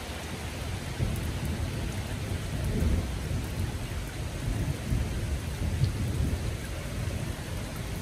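Steady rain falling on leafy trees, with a long roll of thunder that comes in about a second in, swells twice and eases near the end.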